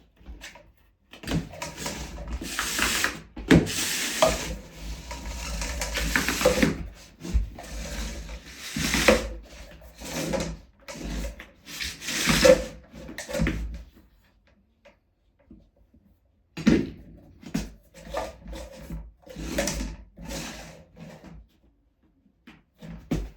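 Hand-handling noise: irregular rubbing and scraping, dense for about the first half, then scattered short scrapes.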